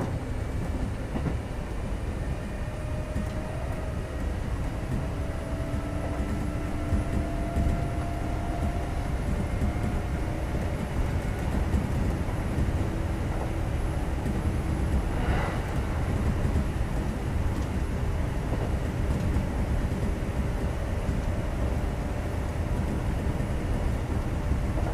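Kintetsu 2430 series commuter train heard from inside the car while running between stations: a steady low rumble of wheels on rail, with a faint hum that slowly rises in pitch early on. A brief higher-pitched sound passes about fifteen seconds in.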